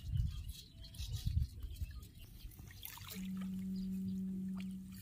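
Shallow rice-paddy water trickling and splashing as hands work in it. A little past halfway, a steady low hum starts and holds for nearly two seconds, the loudest sound here.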